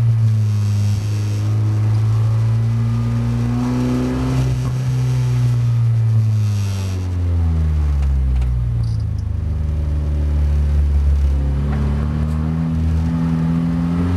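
SEAT Leon Supercopa race car's turbocharged four-cylinder engine heard from inside the cabin under hard acceleration. It revs up, eases off about halfway through for a bend, then pulls up through the revs again near the end.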